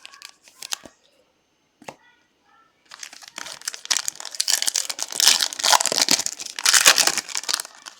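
Foil wrapper of a Topps Finest trading-card pack being torn open and crinkled, a loud crackling rustle that starts about three seconds in, after a few light taps of cards being handled.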